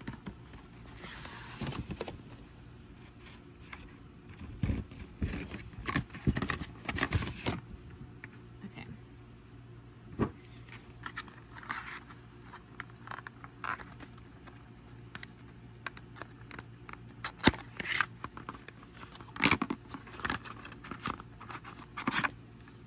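Paper and card being handled: album cards, an envelope and a stiff photobook are shuffled, slid and set down, giving irregular rustles, crinkles and sharp little taps. A low steady hum runs underneath.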